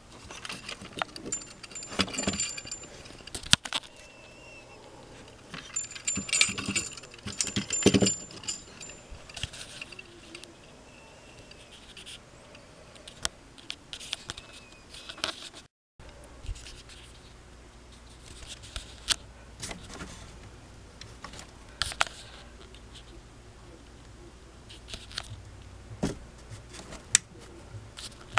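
Small metal bell on a motorized Hallmark Keepsake trolley ornament jingling in short bursts, amid light clicking and rattling from its mechanism. Partway through the sound cuts, and after that there is a faint low hum with scattered ticks.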